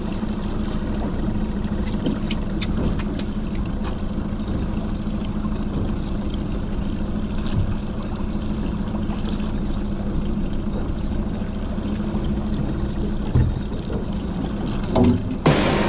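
A 115 hp outboard motor running steadily at low trolling speed, with water washing against the hull. Music cuts in suddenly near the end.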